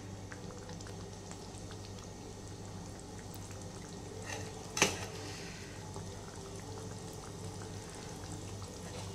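Palak curry sizzling quietly in a steel kadhai over a gas flame as halved boiled eggs are laid into it, with a sharp click about five seconds in.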